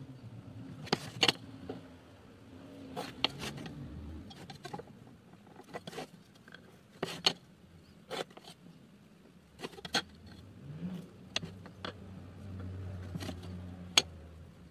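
Irregular light clicks and taps of a steel ruler and pencil being handled and set down on a thin wooden board, over a faint low hum in the background.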